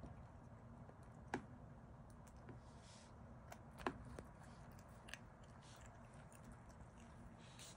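Opossum (Virginia opossum) chewing a slice of pizza, faint chewing with a sharp click about a second in and another near four seconds in.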